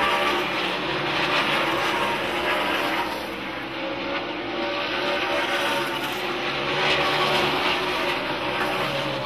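Race car engines running on a speedway, a steady din of several engines at high revs with pitches shifting as the cars go around.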